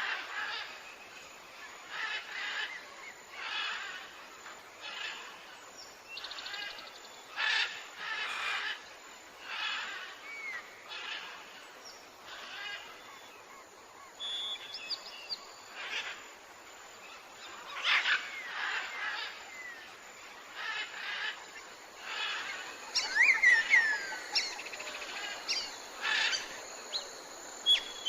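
Tropical forest ambience: birds calling over and over, a pulsed call repeating every second or two, with a few quick whistled notes toward the end, over a steady background hiss.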